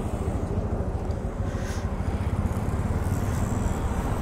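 Motorcycle engine idling steadily, a fast, even low throb.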